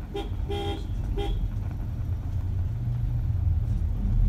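A vehicle horn beeps three times in quick succession, the middle beep the longest, over a steady low rumble of traffic that grows louder near the end.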